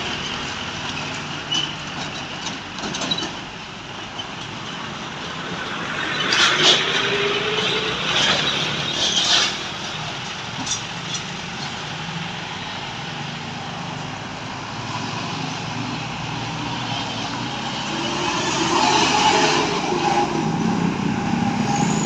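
Road traffic with buses and other heavy vehicles passing, a continuous engine and tyre noise. There are a few short sharp hissing bursts about a third of the way in, and the noise swells again near the end as another vehicle passes.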